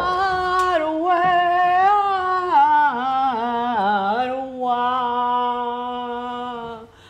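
A single voice singing a slow wordless melody, with long held notes that slide down in pitch. It stops just before the end.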